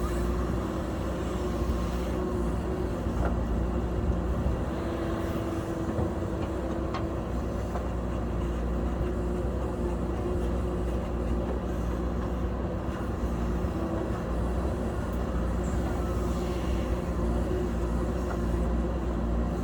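JCB backhoe loader's diesel engine running steadily while it works, with a few faint clicks.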